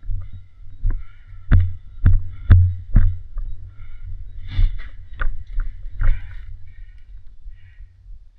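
A run of dull thumps and knocks, about two a second for a while and then more scattered, over a constant low rumble of movement against the microphone.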